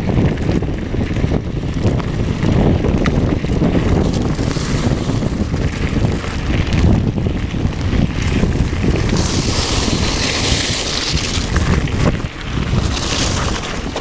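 Heavy wind buffeting the microphone of a handlebar camera on a mountain bike descending fast, mixed with the rumble and chatter of the tyres over a loose gravel track. A stretch of louder hiss about nine to eleven seconds in.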